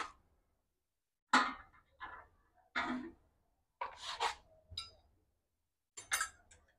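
Wrenches clinking and scraping on the bolts of a petrol generator's exhaust, in short separate bursts about once a second.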